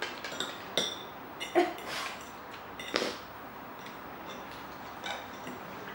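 Metal fork clinking and scraping against a bowl while noodles are eaten: a run of short sharp clinks, some briefly ringing, over the first three seconds, then a few more about five seconds in.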